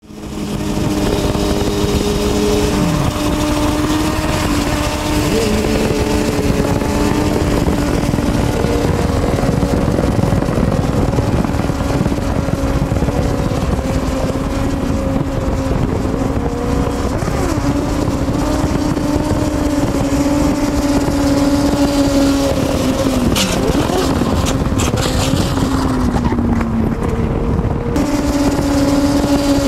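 Sport-bike engines running at steady high revs, their pitch dipping and rising a little now and then, over wind and road noise at highway speed.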